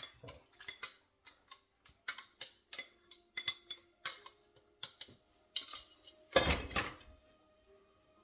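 A spatula scraping and tapping against a stainless-steel mixing bowl as a thick creamy soup mixture is scraped out into a casserole dish: a run of short scrapes and clinks, about one or two a second, with a louder clatter a little after six seconds in.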